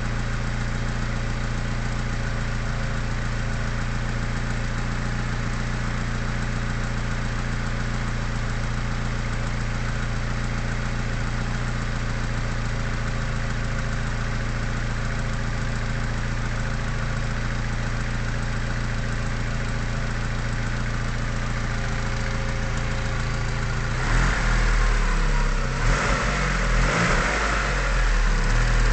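Mitsubishi 4G63T turbocharged inline-four engine idling steadily. About 24 seconds in, the sound turns louder and uneven as the engine is revved.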